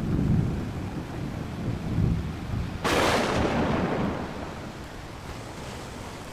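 Thunder sound effect: a low rolling rumble, then a sudden loud crack about three seconds in that slowly dies away.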